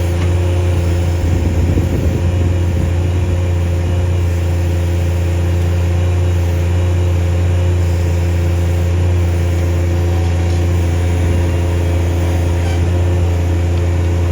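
Bobcat MT100 mini track loader's diesel engine running steadily under hydraulic load while the M06 backhoe attachment digs. It carries a steady squeal that comes from the attachment hitting relief on the hydraulic valves.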